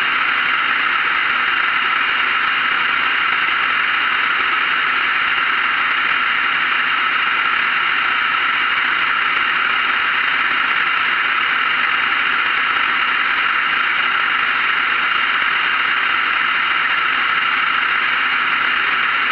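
Light aircraft in cruise flight: engine and airflow heard together as one steady, even noise with no change in pitch or level.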